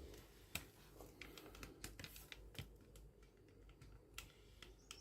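Faint, irregular light clicks and taps of the juicer's parts being handled, over quiet room tone.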